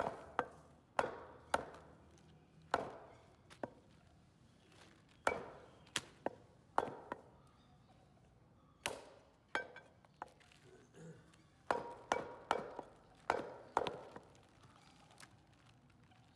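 Butcher's knife chopping goat meat on a wooden stump chopping block: sharp chops at an uneven pace, often in runs of two or three, with short pauses between.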